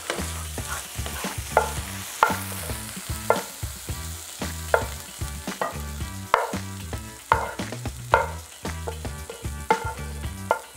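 Hot frying pan of artichoke hearts and bacon sizzling while a wooden spatula scrapes the food out onto a plate. About a dozen sharp knocks of the spatula against the pan come through it.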